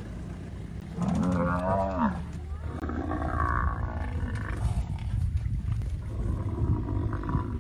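Lions and a Cape buffalo calling during a kill, growling mixed with bellowing. One long loud call comes about a second in, and more calls follow a couple of seconds later, over a steady low rumble.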